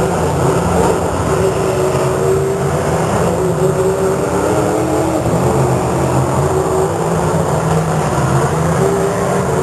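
Demolition derby car engines running loudly, their pitch rising and falling as they rev over a steady low rumble.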